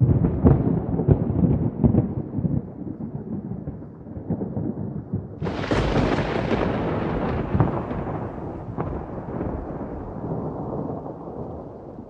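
Thunder from lightning strikes: a sudden crackling rumble at the start that eases off, then a second, sharper and brighter crack about five and a half seconds in that rolls away in a long fading rumble.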